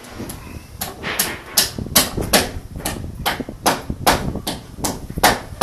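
A hammer striking on the new timber roof joists, a steady run of about a dozen blows at roughly two and a half a second.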